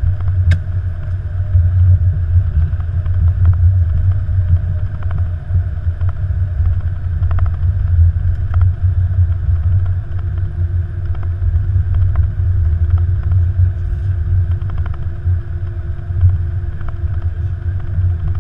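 Steady low rumble in the cockpit of an Airbus A330-200 rolling along the runway after landing, with a few faint clicks and, from about halfway through, a faint steady hum.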